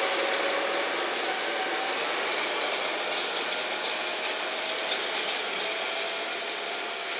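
DE10 diesel-hydraulic locomotive running light on the track: a steady mechanical running noise with occasional clicks and a faint tone slowly rising in pitch, fading gently as it moves away.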